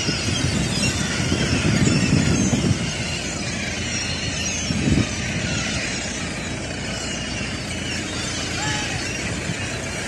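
A flock of gulls calling over and around the beach in many overlapping squeals, with gusts of wind rumbling on the microphone, heaviest in the first three seconds and again briefly about five seconds in.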